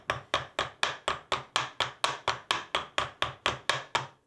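Nylon hammer tapping a stainless steel wire mesh rack against the edge of a steel bench block, about four quick, even blows a second, bending the mesh into a right angle. The blows stop at the very end.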